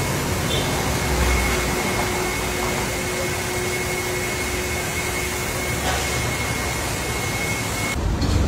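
Steady drone of car-wash machinery with a faint high whine and a lower hum, cutting off suddenly near the end.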